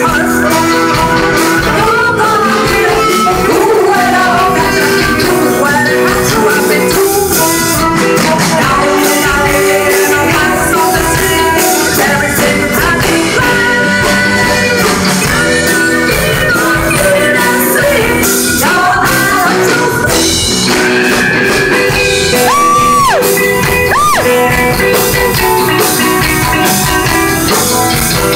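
Live 1960s girl-group-style pop: three women singing, backed by a band with electric guitar and drums.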